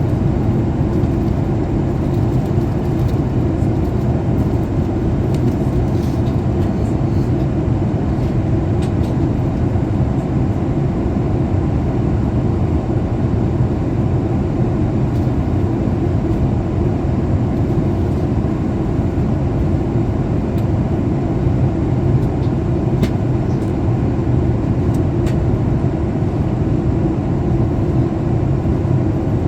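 Steady cabin roar inside a Boeing 737 MAX 8 in descent: airflow over the fuselage and the CFM LEAP-1B turbofan engines, a deep, even rumble.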